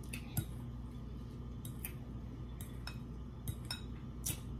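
Metal fork clinking against a glass bowl as it stirs and lifts noodles: about nine light, irregular clinks.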